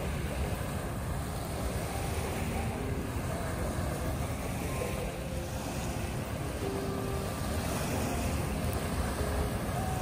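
Small waves breaking and washing up on a sandy bay shore, with steady wind rumble on the microphone.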